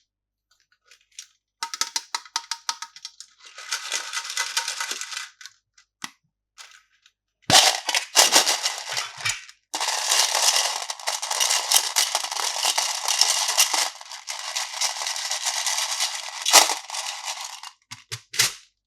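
Plastic candy packaging crinkling and rustling as it is handled and torn open, in several bursts with sharp clicks, loudest and densest in the second half.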